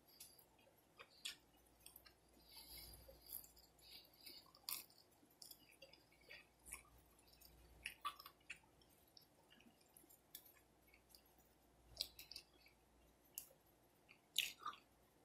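Close-miked chewing and mouth smacking on a fried chicken wing: faint, scattered wet clicks, the loudest shortly before the end.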